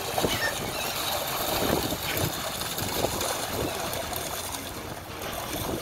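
Water splashing and churning in irregular bursts as a large animal thrashes at the surface, taking fish scraps thrown in from the cleaning station.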